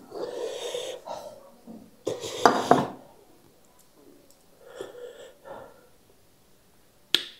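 Person eating, with audible breathing and sniffing through the nose and mouth between mouthfuls. The loudest of these comes about two and a half seconds in, and a short sharp click falls near the end.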